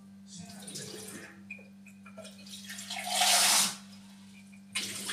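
Kitchen cold tap running into the sink in short gushes. The tap is being run so the water tastes fresh before drinking. The loudest gush lasts under a second about three seconds in, over a steady low hum.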